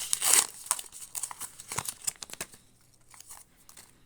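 A trading-card booster pack wrapper being torn open and crinkled by hand, loudest in the first second, then settling into scattered crinkles.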